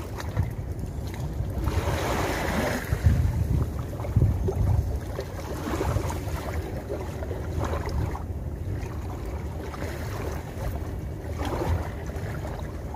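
Wind buffeting the microphone in a steady low rumble, with seawater washing against shoreline rocks in hissing surges about two seconds in and again near the end.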